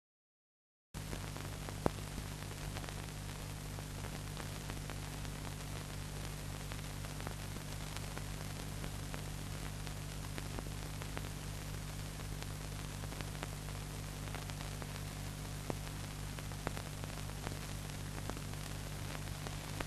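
Steady hiss and low hum from an old film soundtrack, with scattered crackles and clicks, starting about a second in.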